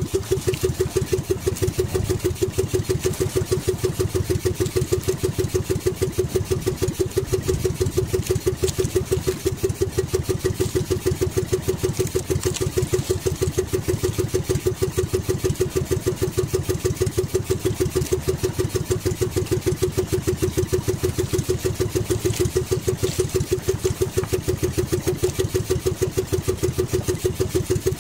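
Small engine of an outrigger fishing boat running steadily at low speed, a fast, even putter.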